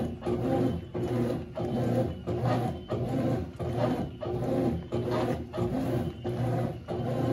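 Consul CWS12 12 kg washing machine agitating a load: the motor hums steadily while the wash churns back and forth in a regular rhythm, roughly one stroke every half second.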